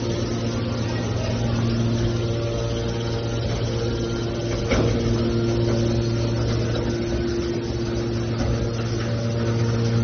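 Hydraulic scrap metal baler's power unit running, a steady low machine hum with a brief click about halfway through.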